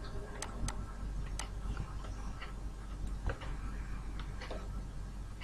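Stylus on a pen tablet while letters are handwritten: a few irregular light clicks and faint scratching, over a low steady hum.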